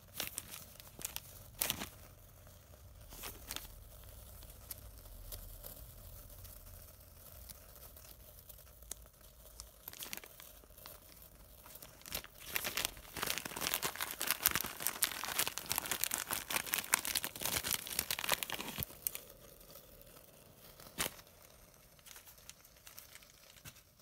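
Small plastic zip bag of frankincense and myrrh resin crinkling and rustling as it is handled and opened, with scattered clicks. The crinkling is densest for several seconds just past the middle.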